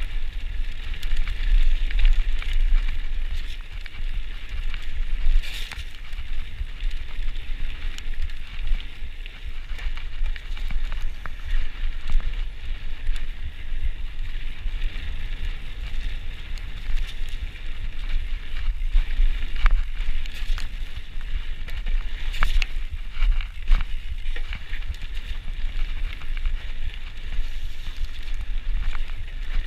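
Cube Stereo mountain bike ridden fast down a dirt singletrack: tyre rumble and rattle from the bike, with wind buffeting the microphone and sharp knocks over bumps, the loudest a cluster about twenty seconds in.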